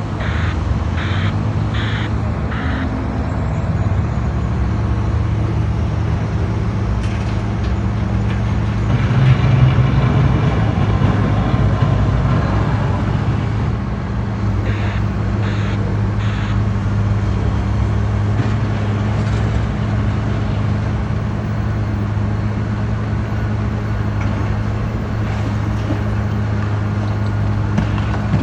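Heavy diesel demolition machine running steadily, with a reversing alarm beeping four times near the start and three times about halfway through.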